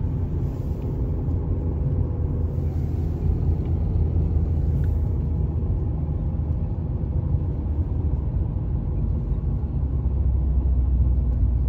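Ford 1.6 TDCi diesel engine on overrun in a low gear, off the throttle, with a clatter from the front of the car over its low running rumble. The clatter comes only when the warm engine is coasting, not under acceleration or at idle; it sounds like connecting-rod bearing damage, but the owner does not know its cause.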